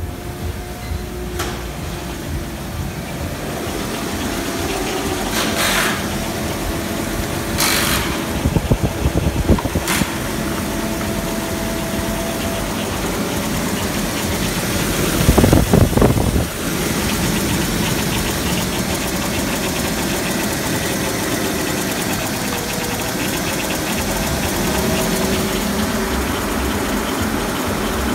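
Mercedes-Benz M112 3.2-litre V6 petrol engine idling steadily. A few sharp knocks come in the first ten seconds, and there is a brief louder burst about halfway through.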